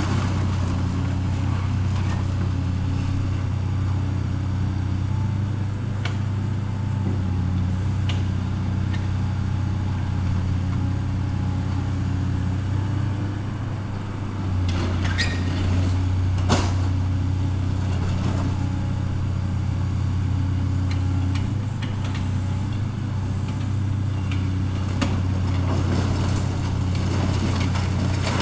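Heavy demolition machine's diesel engine running steadily with a deep hum, with a few sharp knocks of debris or metal partway through.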